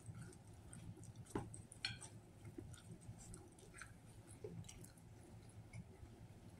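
A person chewing a mouthful of sub sandwich with the mouth closed: faint, wet mouth clicks and smacks over a low steady room hum, with two sharper clicks about one and a half and two seconds in.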